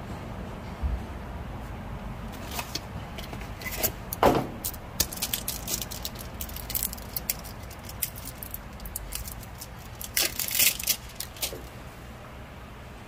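Metal hand tools and parts clinking, knocking and scraping in two busy runs of sharp clicks, the first from about three to six seconds in and the second around ten to eleven seconds in, over a steady low background hum.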